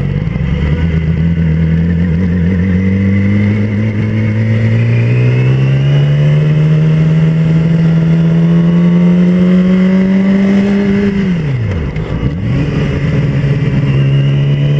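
2007 Yamaha YZF-R6 sportbike's 600 cc inline-four engine under way, heard from the rider's helmet. Its pitch climbs slowly for about eleven seconds, then drops sharply and settles on a steady lower note.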